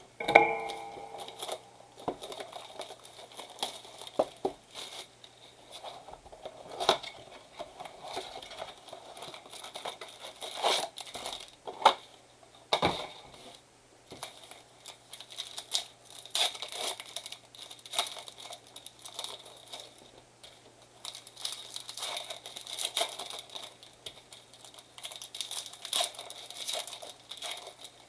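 Packaging of a 2023 Bowman blaster box being torn open and crinkled: wrapper and packs ripped and handled in irregular crackling spurts, with a few sharper rips.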